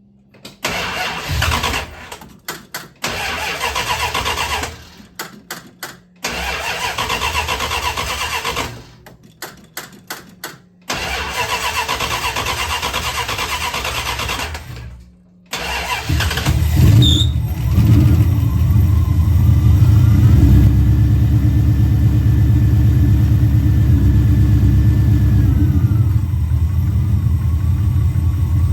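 Mopar 340 small-block V8 cranked on the starter in three separate tries, then catching about sixteen seconds in and running steadily. This is the first start after the distributor was reinstalled and timed.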